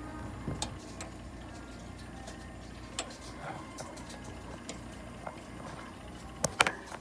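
Steady low hum of a nebulizer running in a veterinary oxygen cage during a cat's inhalation and oxygen therapy. Scattered light clicks sit on top of it, with a sharper pair near the end.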